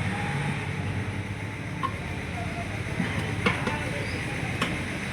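Steady low machine hum with a few sharp metal clicks as a tractor tyre is worked onto its rim.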